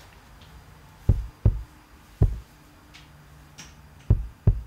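Five deep thumps at uneven spacing, each dying away quickly, over a faint low steady tone.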